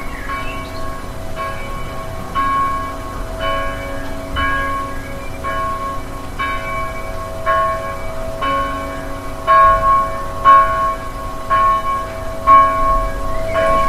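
Church bells ringing, a new stroke about once a second, each tone ringing on under the next.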